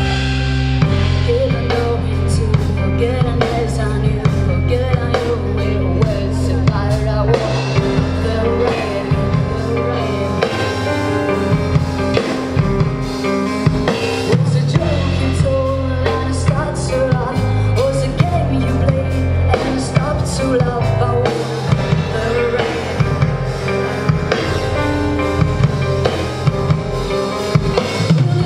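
Rock band playing live: drum kit with a steady beat, bass guitar holding long low notes, and electric guitar.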